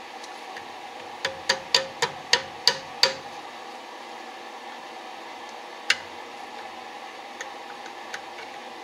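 Safety wire pliers clicking sharply as they are worked on steel safety wire on a carburetor. There is a quick run of about seven clicks, roughly four a second, then single clicks a few seconds later, over a steady background hiss.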